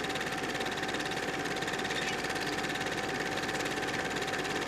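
Film projector running, a fast, even mechanical clatter with a steady whine.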